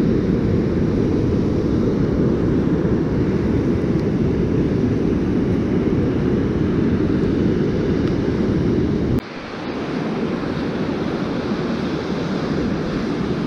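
Wind buffeting the microphone on a surf beach, a dense low rumble with the surf behind it. About nine seconds in it drops suddenly to a quieter hiss of wind and waves.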